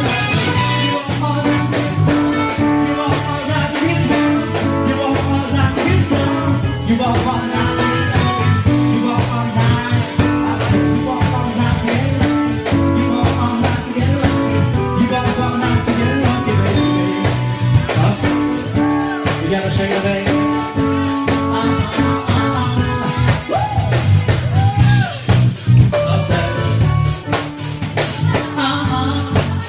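Live band playing upbeat dance music: keyboard over a steady drum beat, with singing.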